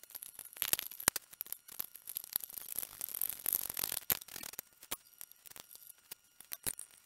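Handling noise from hands tucking wiring behind a motorcycle's frame: scattered light clicks and rustling, busiest in the first half and sparser near the end.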